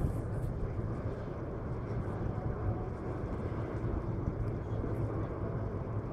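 Steady low outdoor rumble with a faint hum underneath, no single sound standing out.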